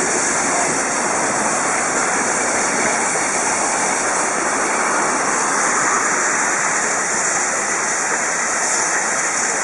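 Steam hissing steadily from a DR Class 52 steam locomotive, an even, bright rush that does not vary.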